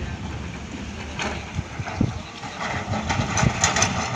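Heavy diesel engines idling and running, a steady low rumble with irregular knocks. Hissy bursts of noise come about a second in and again near the end.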